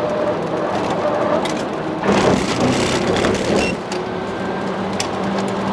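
Cabin noise of a Tesla Model 3 driven hard on a race track: tyre and road roar with wind, over a steady low hum. The roar swells for about a second and a half around two seconds in.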